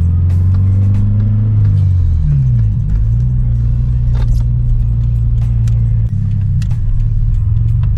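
2014 Subaru BRZ's 2.0-litre flat-four engine running through its aftermarket exhaust, its revs falling about two seconds in and then holding a steady low drone. A few faint clicks sound over it.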